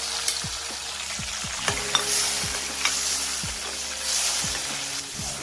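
Spiced tamarind water and oil boiling and sizzling in a steel kadhai, stirred with a metal ladle that clicks against the pan a few times.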